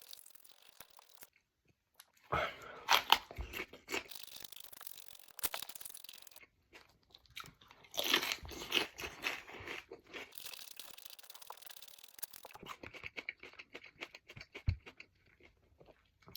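Close-up chewing of raw pepper, crunching wetly in irregular bouts with short pauses between.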